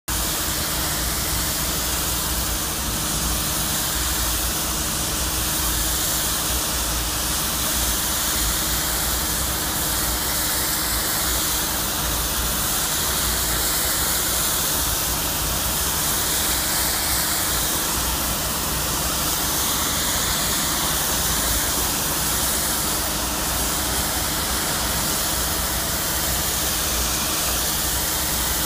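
Thermatech hot-water cleaning lance spraying water at up to 150 °C at low pressure onto brickwork: a steady hiss of the spray and steam. A low steady hum, typical of the cleaning machine, runs underneath.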